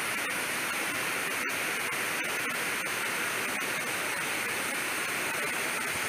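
Shallow rocky stream rushing and splashing over rocks and branches, a steady, even rush of water.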